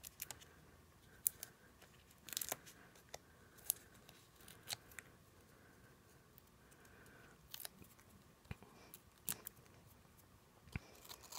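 Faint handling of cardstock on a tabletop: scattered light clicks and taps with a few short rustles as paper pieces are shifted and pressed down onto the card.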